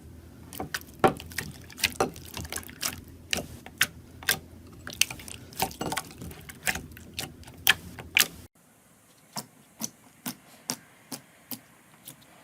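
Slime being squeezed and poked, giving irregular sharp wet clicks and pops, several a second. About eight seconds in the background drops away and the pops become sparser and quieter.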